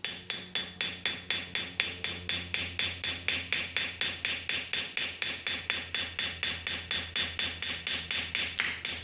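Small hammer tapping steadily on a brass 50 BMG cartridge case, about four light strikes a second, each with a faint metallic ring. The taps loosen a steel ball bearing lodged tight inside the case.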